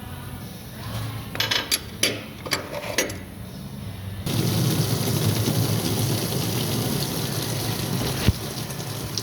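A few sharp metal clicks and knocks, then about four seconds in a sudden steady rush of engine coolant pouring out of the 3.9 litre engine block as the block heater plug comes free, with one sharp click near the end.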